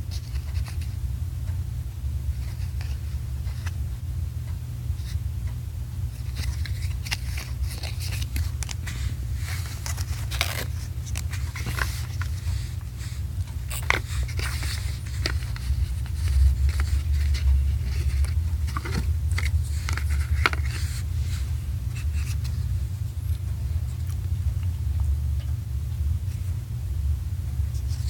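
A card game's box and components being handled: scattered clicks, taps and scrapes, busiest in the middle, over a steady low hum.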